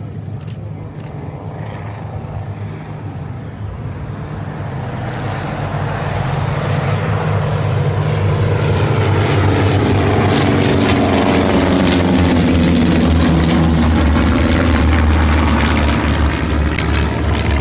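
SIAI-Marchetti SF-260 propeller plane flying past. Its engine and propeller drone grows louder over several seconds as it approaches, peaks as it goes by, and the pitch drops as it passes.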